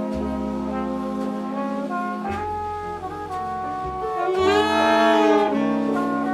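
Jazz horn section of trumpet, trombone, alto and tenor saxophones holding harmonized chords over bass notes in a ballad. The chords change every second or two and the horns swell louder about two-thirds of the way through, then ease back.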